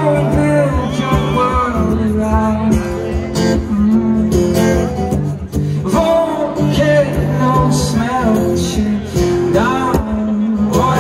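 Live solo performance: a male singer singing over his acoustic guitar, played loud through the venue's sound system.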